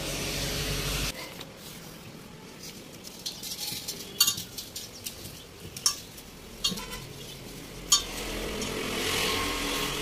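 Sharp metallic clanks and clinks of a steel LPG gas cylinder being gripped and moved about, about four separate knocks with a short ring, the loudest near the end.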